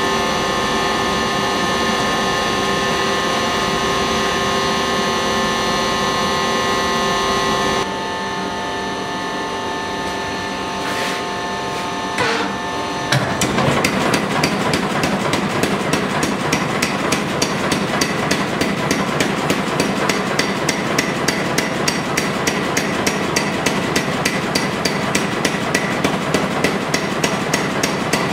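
A steady motor hum, then about halfway through a mechanical power hammer starts striking a glowing steel bar in a fast, even run of blows that keeps going.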